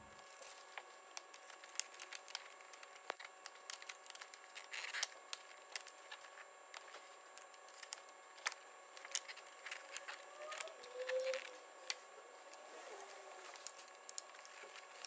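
Faint, scattered clicks and rattles of hands working on plastic parts in a car's engine bay, unclipping the DPF pressure sensor's electrical connector and hose clamps. A brief faint squeak comes about two thirds of the way through.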